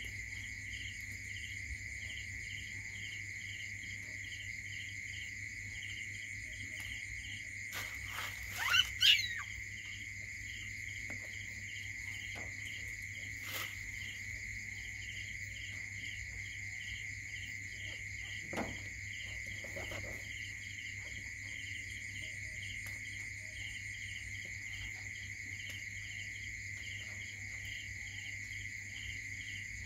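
Night chorus of crickets: a steady high trill with a chirp repeating about twice a second over it, and a low hum underneath. About nine seconds in, a newborn puppy gives a few short high squeaks, the loudest sound, and there is a single faint squeak near the twentieth second.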